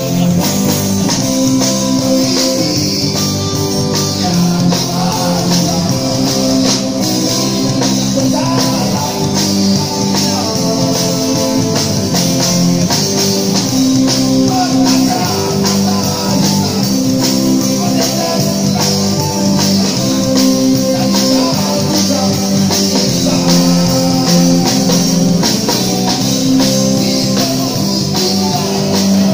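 Live street band playing rock music through amplifiers, with electric guitar and a drum kit keeping a steady beat, and a voice singing over it.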